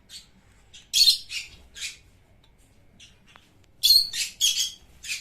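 Pet parrots squawking: short, harsh, high-pitched calls in two loud clusters, one about a second in and another near four seconds.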